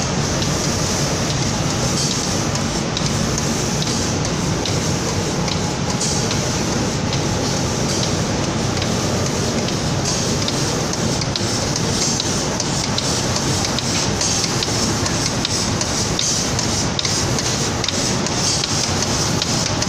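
Automatic paint spraying line running: a steady, loud hiss of compressed-air spray over a low machine drone.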